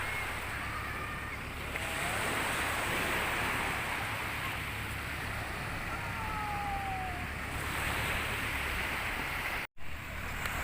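Sea surf washing steadily onto the beach, with a faint falling whistle about six seconds in.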